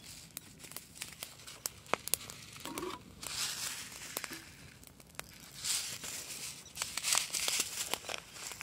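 Small twig-and-branch campfire crackling under a hanging cooking pot, with irregular sharp pops and short bursts of hiss.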